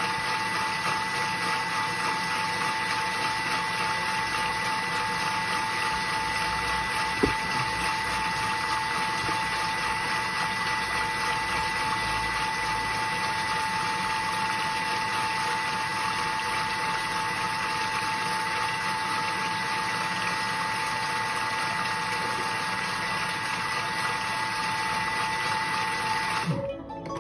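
Vorwerk Thermomix TM6 motor running steadily at speed 4, with a steady whine as it mixes a liquid blend of melted butter, cream and sugar; it cuts off near the end as the 30-second timer runs out. One brief knock about seven seconds in.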